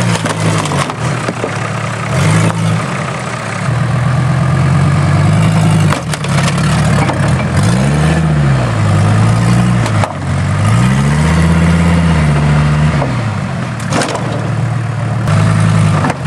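Heavily modified Suzuki Samurai off-roader's engine running under load and revving up and down in two long swells, about eight and eleven seconds in, as its front wheel climbs onto a car's bonnet. The big mud tyres scrabble in loose sand with a steady rush, with a few short knocks.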